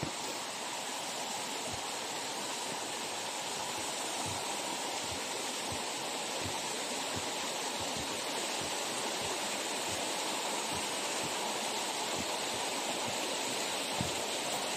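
Steady rush of the waterfall and stream below, with soft low thumps of footsteps on the wooden planks of a footbridge, roughly two a second.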